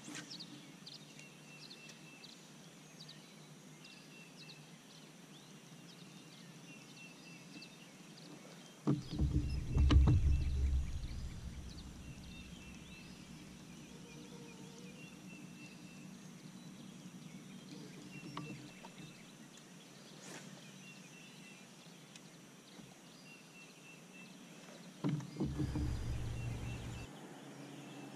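Lakeside ambience with small birds chirping in the background, broken twice by a knock followed by about two seconds of low rumble, about a third of the way in and again near the end.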